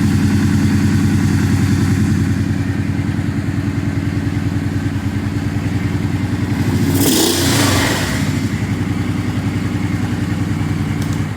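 Kawasaki Brute Force 650's V-twin engine idling steadily, now running after a no-start problem. About seven seconds in there is a brief hissy burst over the engine, and the engine sound drops away right at the end.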